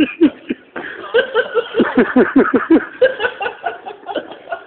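A person laughing hard in quick, repeated bursts, with a brief pause about half a second in before the laughter picks up again.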